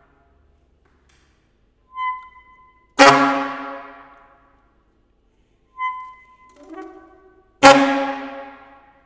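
Solo saxophone: short, quieter high notes alternate with two loud, sudden accented notes, about three and eight seconds in, each dying away over a second or so.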